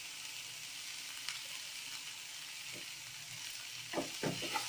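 Chopped beans, carrot and onion sizzling steadily in hot oil in a nonstick kadai while a wooden spatula stirs them, with a few louder stirring scrapes near the end.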